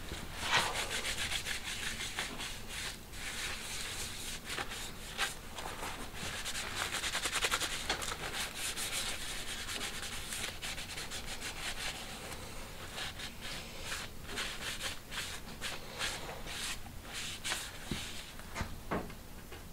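Stiff bristle brush scrubbing mink oil into a leather sheath in short, rapid strokes, packed close together for the first several seconds and coming as more spaced-out strokes later on.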